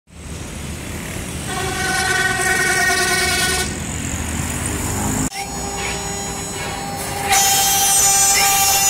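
Street traffic noise with a vehicle horn held for about two seconds. About five seconds in, a CNC router's spindle whines steadily, and a little over seven seconds in its bit starts cutting into the wooden board, adding a loud rasping hiss over the whine.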